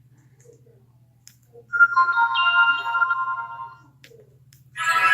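Built-in notification tones of a Sony Ericsson Z750 flip phone, played from its small speaker. A chiming tone sounds for about two seconds, starting near two seconds in and fading away. A second, brighter tone starts near the end.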